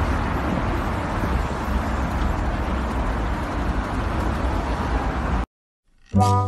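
Steady rushing background noise with no clear events, cutting off suddenly about five and a half seconds in. After a brief silence, music with sustained notes begins near the end.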